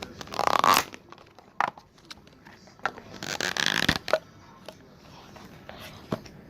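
Slime being squished and handled: irregular squelching and clicking noises, with the loudest bursts near the start and about three seconds in.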